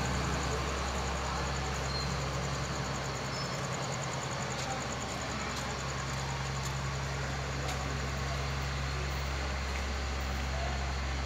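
Steady low hum of an engine running, over an even wash of background noise, with a few faint ticks.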